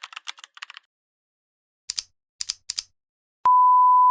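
A fast run of light clicks that stops about a second in, then three sharp, louder clicks, then a loud, steady, high beep. The beep starts suddenly near the end and cuts off abruptly.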